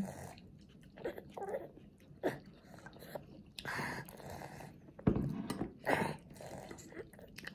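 A toddler eating with a fork: chewing and mouth sounds, with a few short clicks and knocks as the fork works the food on the ceramic plate. The loudest knock comes about five seconds in.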